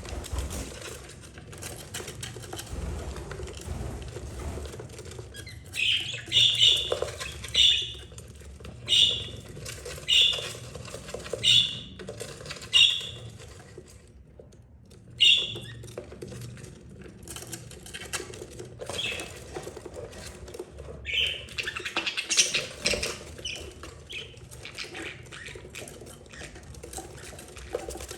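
Budgerigars, a mother and her nearly fledged chicks, making short sharp calls in a run of about one a second, pausing, then calling again near the end, with quieter fluttering and chatter between.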